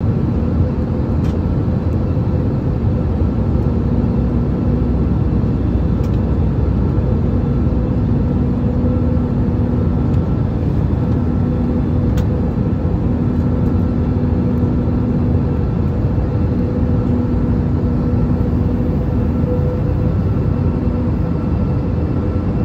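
Airliner cabin noise: a steady, loud drone of engine and rushing air, with a lower hum that comes and goes.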